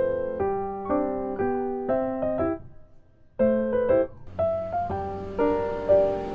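Background piano music: a slow run of struck notes and chords, each fading after it is played, with a brief pause about halfway through before the playing resumes.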